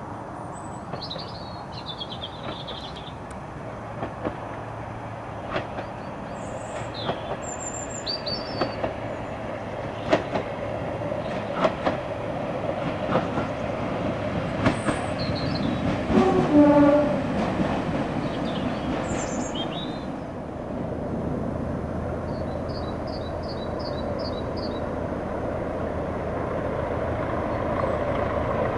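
Class 122 single-car diesel railcar approaching on jointed track, its wheels clicking over the rail joints, with a short horn blast just past halfway that is the loudest sound. Birds chirp over it, and a steady diesel rumble builds towards the end.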